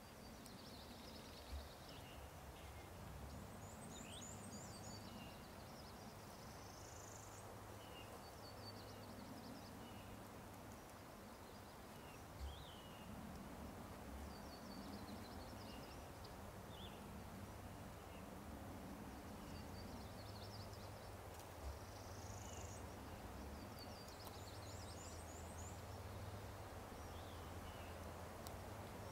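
Faint woodland birdsong: several songbirds repeating short chirped and trilled phrases every few seconds, over a low steady rumble, with three soft thumps spread through.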